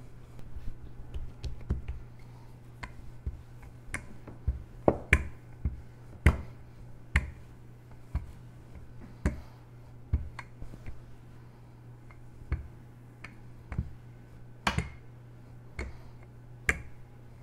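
Irregular sharp taps and knocks of kitchen tools (metal cookie cutter, spatula, rolling pin) on a stone countertop and metal baking sheets as gingerbread dough is re-rolled and cut out, a few knocks louder than the rest. A low steady hum runs underneath.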